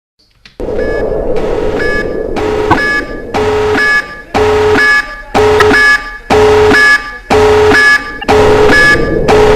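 An alarm sounding. It comes in about half a second in and runs fairly continuously for the first couple of seconds, then settles into repeated steady buzzing tones, about one a second, each lasting just over half a second with short gaps between.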